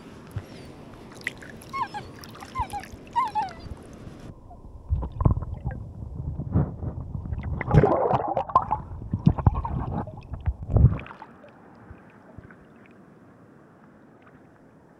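Faint river noise with a few short chirps, then, about five seconds in, muffled water splashing and gurgling as a released Atlantic salmon kicks and swims off. The splashes are loudest near the middle and once more just before they stop, about eleven seconds in.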